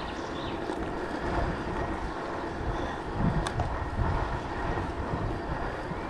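Wind buffeting a chest-mounted GoPro's microphone while riding a bicycle, in irregular low gusts over a steady rush of rolling noise.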